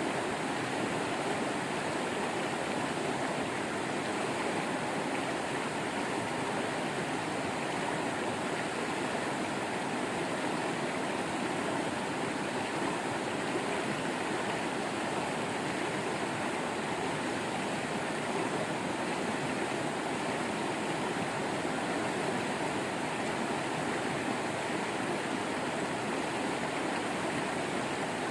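Waterfall and running stream water rushing steadily, a constant even noise with no break.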